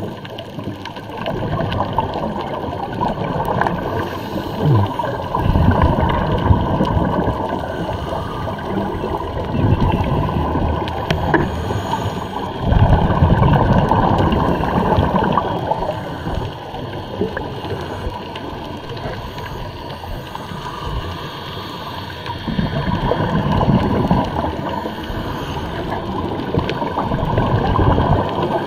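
Scuba regulator exhaust bubbles heard underwater through the camera housing: several bursts of low, rumbling bubbling a few seconds apart, over a steady underwater hiss.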